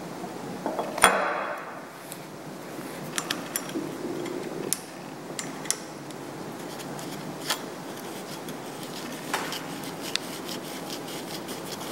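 Light metal-on-metal clicks and taps from handling the cast gear housing and steel cover plate of a Chesterman height gage, with one sharp clink about a second in that rings on briefly.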